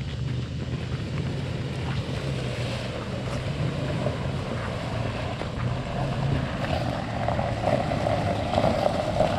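Toyota Sequoia SUV's engine running steadily as it drives over the creek bed, growing gradually louder.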